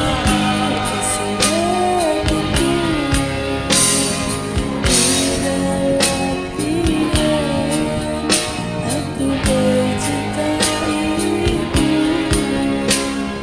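Karaoke singing over a recorded pop backing track with guitar and a beat.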